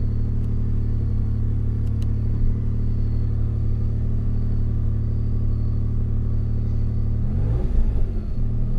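Mitsubishi 3000GT VR4's twin-turbo 6G72 V6 idling steadily at about 2,000 rpm, heard from inside the cabin. Near the end the engine speed dips briefly and comes back up.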